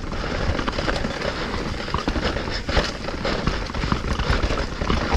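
Full-suspension mountain bike (Specialized Stumpjumper Evo Alloy) rolling fast over rocky singletrack: a continuous clatter of tyres, chain and frame knocking over rocks, over a low rumble of riding noise.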